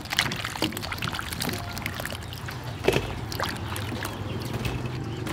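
Hands swishing and rubbing peeled salak fruit pieces in water in a stainless steel basin: irregular splashes, sloshing and light knocks of fruit against the metal, with a louder splash about three seconds in.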